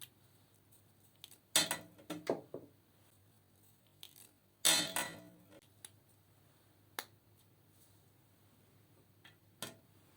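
Small hard objects being handled on a tabletop: a few separate sharp clicks and clattering knocks, with a longer clatter about five seconds in and single clicks near the end.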